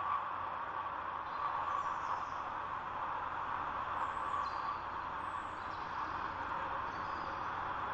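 Steady wind noise, with a few faint, high, downward-sliding bird calls now and then.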